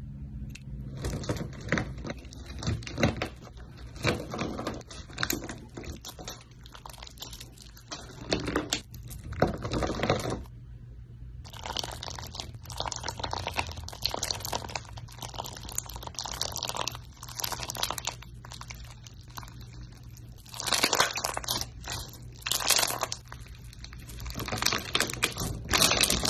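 Slime being squished and stretched, making irregular wet crackles and squelches that stop briefly about ten seconds in.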